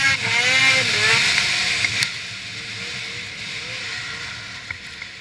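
Ski-Doo Freeride 800 snowmobile's two-stroke engine revving high, then easing off about a second in. It runs on lower and steadily quieter.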